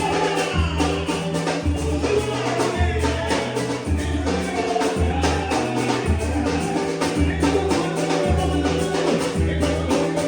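Music with singing and percussion over deep bass notes that repeat about once a second.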